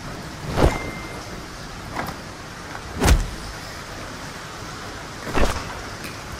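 Four quick whooshes of cloth swung and flung through the air, a second or two apart, the third the loudest, over a steady background hiss.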